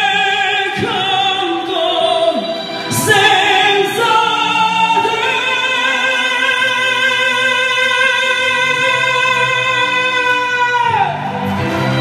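Singing over music: a few sung phrases with a wavering pitch, then one long held note that slides down and stops near the end.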